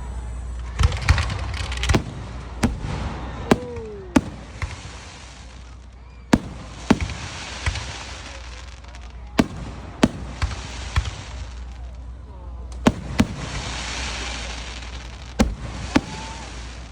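Fireworks display: a run of sharp, irregularly spaced bangs from shells bursting overhead, with stretches of dense crackling hiss between them and a short falling whistle about three and a half seconds in.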